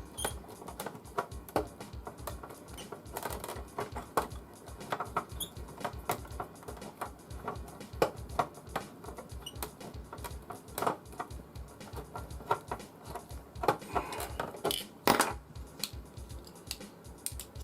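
Irregular clicks, taps and scrapes of hand tools on a stuck screw in a small electronics case as it is worked loose. Background music with a steady low beat plays underneath.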